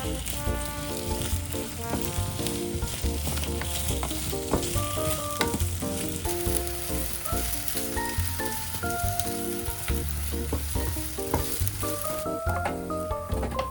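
Chicken and zucchini sizzling in a frying pan as they are stir-fried, with small clicks and scrapes of the utensil in the pan. The sizzle thins out near the end. Background music with a steady bass line plays throughout.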